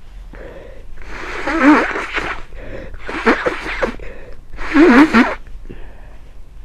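A person with a head cold sneezing three times in quick succession, each sneeze a loud voiced burst about a second and a half apart.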